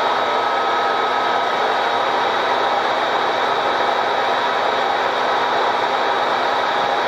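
Steady, even whirring of a running machine or appliance, with a constant hum under it and no change in level.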